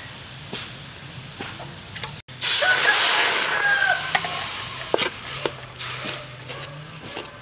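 A metal spoon scraping and tapping a steel wok as lumps of paste are pushed around. A little over two seconds in, a loud hiss of liquid hitting the hot wok rises with the steam and fades over about two seconds, with more spoon clicks after it.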